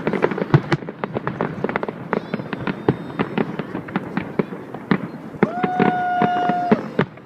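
Fireworks display: a dense run of rapid crackling and bangs from bursting shells. A steady, even-pitched whistle sounds over it for about a second and a half near the end.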